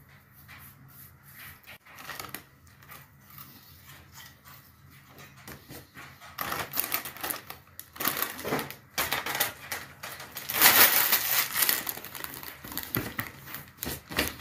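Faint clicks and rustles, then from about six seconds in the loud, dense crinkling of a plastic crisps bag being handled, loudest a little past the middle.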